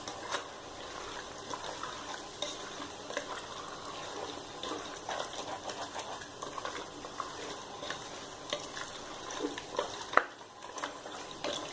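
Chicken pieces sizzling in oil and masala as they are stirred and sautéed in a pot, with a spoon scraping and clicking against the pot now and then.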